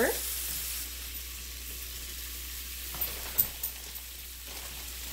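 Marinated chicken and vegetable kebabs sizzling steadily on the hot plate of an open George Foreman electric grill, with a few light clicks about three seconds in.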